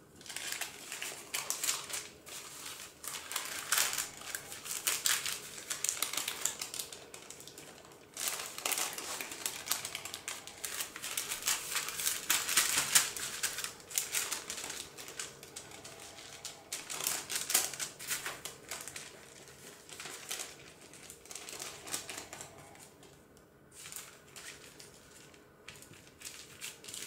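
Parchment paper crinkling and rustling as it is folded over and pressed down by hand, in quick irregular crackles that are busiest in the first half and thin out later.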